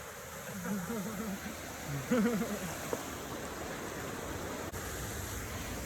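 Steady rush of falling and flowing water from a waterfall, with faint voices briefly in the first half.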